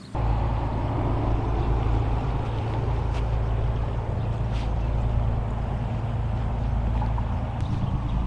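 Motorboat engine running out on the water: a steady, low drone.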